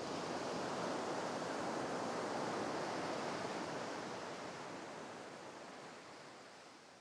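Sea surf washing, a steady hiss of water that swells early and then slowly fades away.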